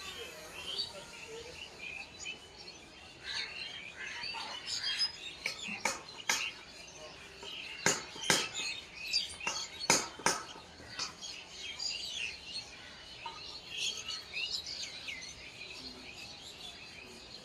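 Many birds chirping and calling at once, short overlapping chirps and trills throughout. Three pairs of sharp clicks stand out as the loudest sounds, between about six and ten seconds in.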